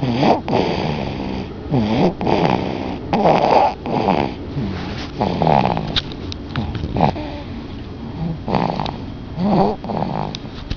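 A sleeping baby snoring: a noisy breath about every second or so, some with a short pitched squeak or grunt in them.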